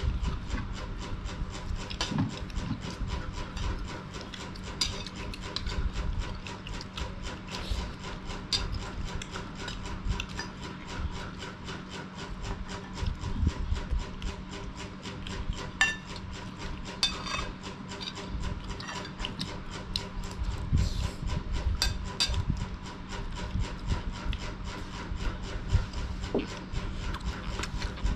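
Eating sounds at close range: chewing and spoons scraping and clicking on plates of rice, many small crackles over a steady low hum.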